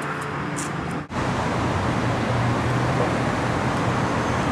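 Steady outdoor traffic noise, an even rumble and hiss with a low hum, which drops out briefly and changes character about a second in.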